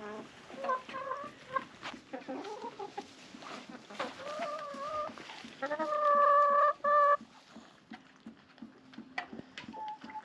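Hens clucking and calling as they crowd around a waterer. A loud, drawn-out call about six seconds in, broken once, stands out over the steady clucking.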